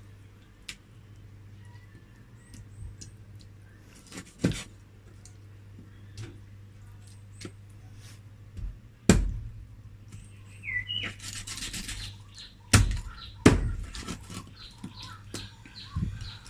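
Scattered sharp knocks and clatter over a steady low hum, with the loudest knocks about nine and thirteen seconds in and a short chirp shortly before ten and a half seconds.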